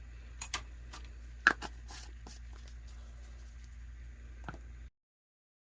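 A few short, light clicks and taps of small objects being handled, the loudest about a second and a half in, over a steady low hum; the sound cuts off abruptly near the end.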